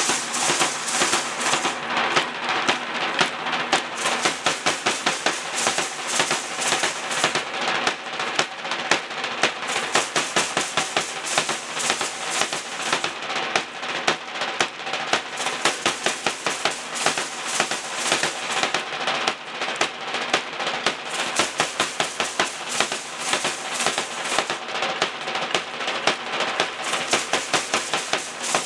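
Danza drummers beating a fast, steady rhythm, about three loud beats a second, with dense rattling and clacking from the dancers' percussion on the beat.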